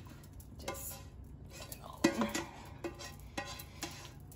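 A utensil scraping and tapping against a nonstick frying pan as thick creamy filling is scraped out into a glass baking dish: a string of short scrapes and knocks, the loudest about two seconds in.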